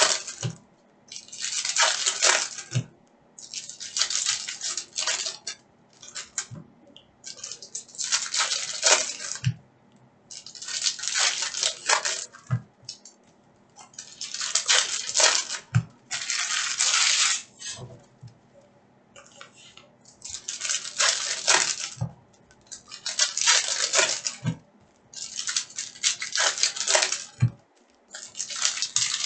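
Foil trading-card packs being torn open and crinkled, and the stacks of cards rubbed and slid through the hands, in rustling, crackling bursts of a second or two, about a dozen in all, with a short low knock among many of them.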